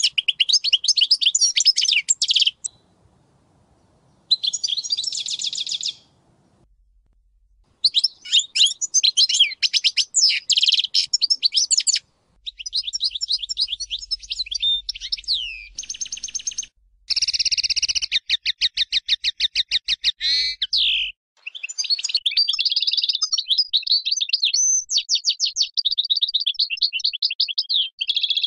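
European goldfinch of the 'Major' race singing: long phrases of rapid notes, trills and quick pitch glides, broken by two pauses of a couple of seconds in the first eight seconds and a few short breaks later.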